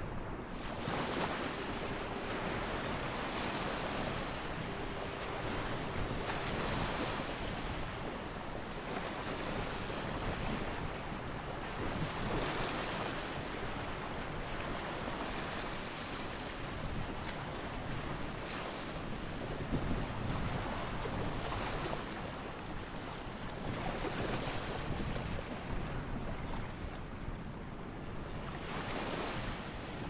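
Small ocean surf waves breaking and washing up the beach: a continuous rushing wash that swells every few seconds as each wave runs in.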